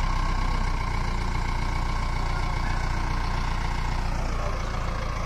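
Diesel engine of a JCB backhoe loader running steadily with its front bucket set against a stuck, sugarcane-loaded tractor trailer, ready to push it out, with a steady whine above the engine hum.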